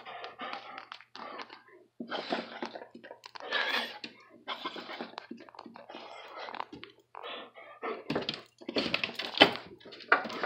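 Excited border collie chattering: irregular breathy huffs and jaw chatter in short bursts, with scattered clicks between them.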